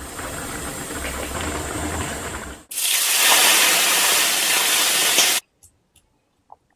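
A pot of pickled-vegetable fish broth simmering and bubbling. Then, a little over halfway in, a sudden loud hiss as smoking-hot oil is poured over Sichuan peppercorns and dried chillies on the broth. The sizzle cuts off abruptly after about two and a half seconds.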